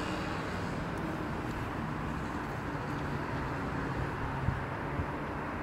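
Steady outdoor rumble of distant road traffic, with a faint low engine drone underneath.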